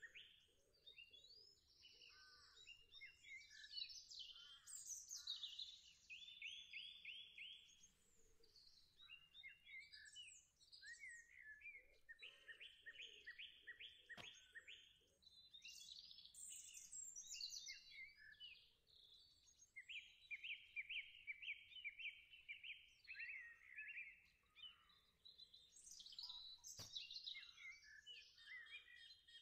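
Songbirds singing, faint: quick repeated trills and whistled phrases following one another without a break.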